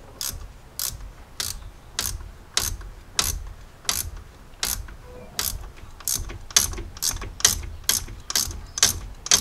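Small ratchet clicking in steady strokes, about two a second and a little faster in the second half, as the already loosened T60 Torx bolt holding the Jeep 4.0L oil filter adapter is run out by hand.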